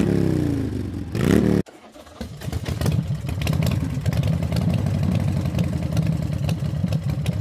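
Motorcycle engine revving, its pitch sinking and then climbing sharply before it cuts off abruptly under two seconds in. A motorcycle engine then fades in and runs steadily at low revs with a rapid, uneven beat.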